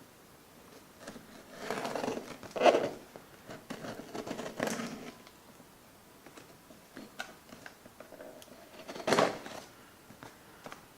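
A box being opened by hand: scraping, cutting and tearing at its packaging in a few short, noisy bursts, the loudest near the end.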